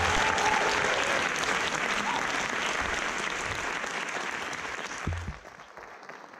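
Audience applauding, dying down about five seconds in.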